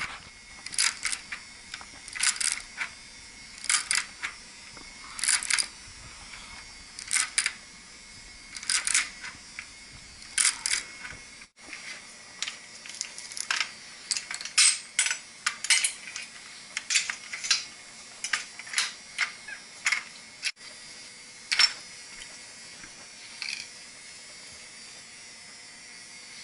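Hand-tightening threaded steel pipe fittings: sharp metallic clicks, often in pairs, every second or two as the tool is reset and pulled on the pipe. They thin out near the end.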